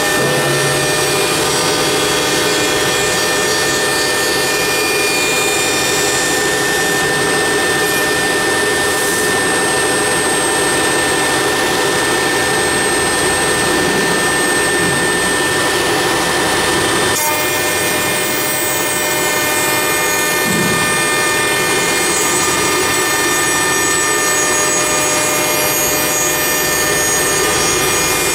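CNC router spindle running at high speed and cutting a wooden column turned on a rotary axis: a steady whine of several high tones over the constant hiss of the cut. The sound shifts abruptly about halfway through.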